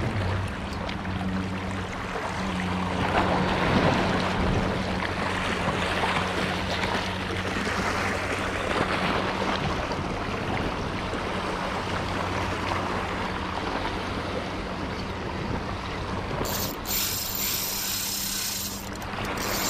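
Wind and sea noise on a chest-mounted action camera's microphone, with the mechanical whir of a Shimano Twin Power 4000XG spinning reel being cranked to retrieve a jig. Near the end a higher hiss joins in.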